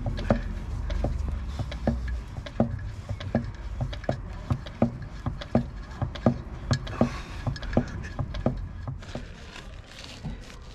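Graduated manual oil-transfer hand pump being stroked, a short click at each stroke about every 0.7 seconds, pumping gear oil into the Land Rover Defender's transfer box. A low hum stops about two seconds in.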